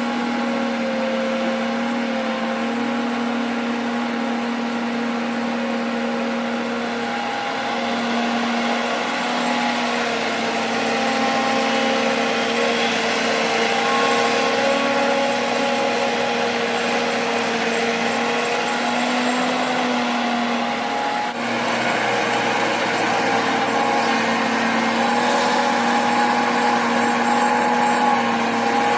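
Diesel engine of heavy earthmoving machinery running steadily, its pitch wavering slightly as the load changes, with a brief drop and shift in the sound about two-thirds of the way through.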